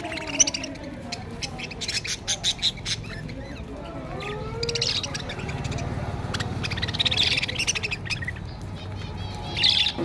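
A flock of budgerigars chattering, with quick high chirps that come in clusters over a low background hum.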